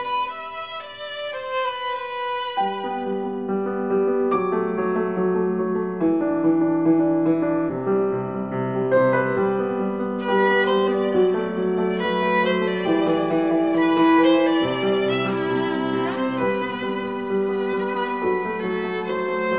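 Violin and piano duet: the violin plays a melody of long held notes over piano accompaniment, the texture filling out about two and a half seconds in.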